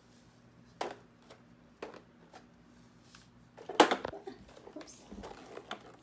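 Light taps and footsteps on a wooden floor, then a louder thump about four seconds in as a bare foot lands on a plastic digital bathroom scale, followed by a few soft knocks as the weight settles. A faint steady hum runs underneath.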